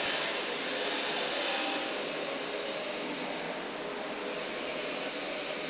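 Steady whooshing, blower-like noise of a running motor or machine, with no clear pitch or clicks and a slight dip about halfway through.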